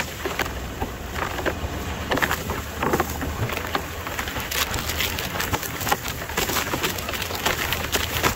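Tall weeds and grass swishing and snapping against a V8 Toyota 4Runner as it drives through a field: a rapid, irregular crackle of stalks hitting the body over a low steady engine drone.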